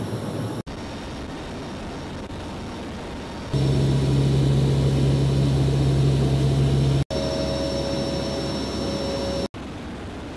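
CH-53E Super Stallion heavy-lift helicopter's three turboshaft engines and rotors running: a steady noisy drone, cut off abruptly three times into separate stretches. It is loudest in the middle, from about three and a half seconds in, where a strong low steady hum joins it.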